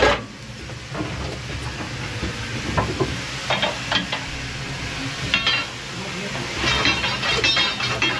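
Steel fire iron knocking and scraping in the firebox of a 1952 steam locomotive as the leftover fire is broken up and knocked down through the grate into the ash pan. It gives scattered single knocks at first, then a quick run of scraping clatter near the end, over the steady rumble and hiss of the fire drawn up by the blower.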